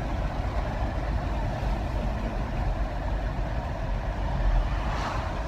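Steady rumble of engine and road noise inside a moving car's cabin.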